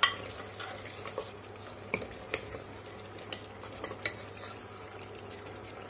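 Metal ladle stirring and scraping thick mutton korma masala in an aluminium pressure cooker, with a low sizzle of the masala frying in oil. The ladle knocks sharply against the pot at the start and clicks a few more times about two to four seconds in. This is the bhunna stage, the masala and meat being fried with a splash of water so they don't stick.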